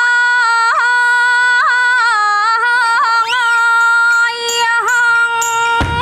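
A woman's voice in Thai khap sepha style, in ue-an vocalising: one long note on a vowel, held steady, with quick melismatic turns every second or so.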